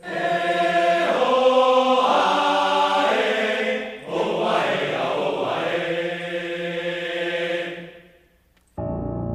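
Logo jingle of a chanted, choir-like vocal sung in two long held phrases of about four seconds each. Near the end, after a brief gap, soft instrumental background music starts.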